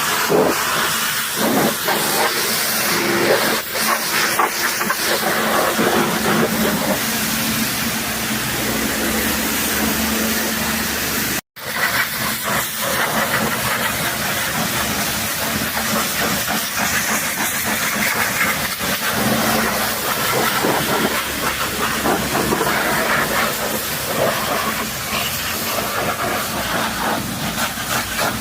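High-pressure washer jet spraying water onto a muddy truck's bodywork: a loud, steady hiss of water over a low hum. It cuts out for an instant about eleven and a half seconds in, then carries on.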